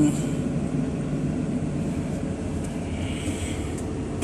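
Caterpillar 320 excavator's diesel engine idling steadily, heard from inside the closed cab with the air conditioning running. A single sharp click near the end.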